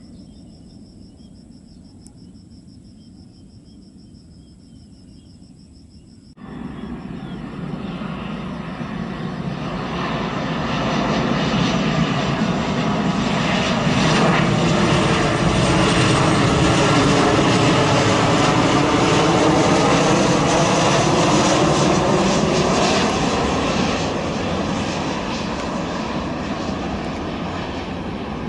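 Jet engines of a Boeing 737 Next Generation airliner on final approach, passing low overhead with gear down. The engine noise cuts in suddenly about six seconds in, swells to its loudest in the middle with a sweeping, phasing tone as the aircraft passes, then eases off near the end. Before it, a steady high insect chirr over quiet surroundings.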